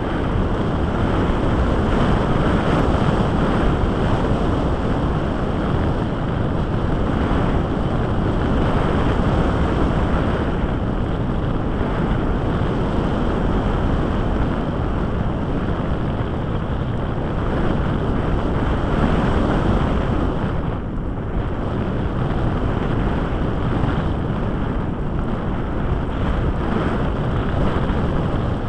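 Wind rushing over the microphone of a small camera riding on a gliding RC sailplane: a steady, loud hiss with no motor tone, easing slightly for a moment about twenty seconds in.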